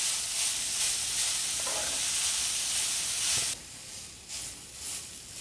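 Grated carrot frying in hot ghee in a stainless steel kadhai, sizzling steadily while a spatula stirs and tosses it. The sizzle drops sharply and becomes quieter about three and a half seconds in.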